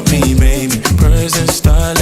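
Background music with a steady beat, in an Afrobeat or reggae-like style.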